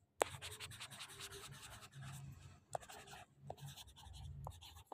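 Faint handwriting sounds of a stylus scratching and tapping on a tablet screen, with a few sharp taps spread through it.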